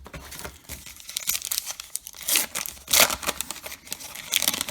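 A baseball card pack's wrapper being torn open and crinkled: irregular crackling, loudest in a few bursts around the middle and near the end.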